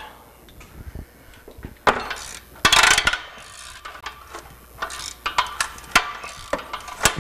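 Ratchet wrench and socket clicking and clinking on the catalytic converter's flange bolts as they are worked loose, in scattered short clicks with a louder burst of metal rattle about two to three seconds in.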